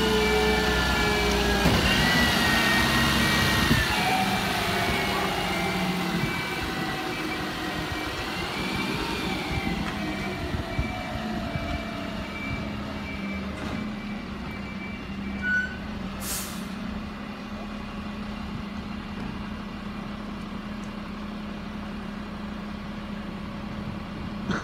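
Dennis refuse collection truck's diesel engine running, with a wavering whine in the first few seconds and its reversing beeper pulsing steadily as it backs away. The beeper stops about 15 s in, followed by a short air-brake hiss.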